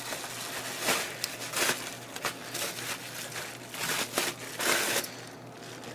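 Plastic bubble wrap crinkling and rustling as it is pulled off a paintball marker, in a run of irregular bursts, the loudest just before five seconds in.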